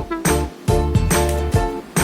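Upbeat background music with a bass line and a steady beat.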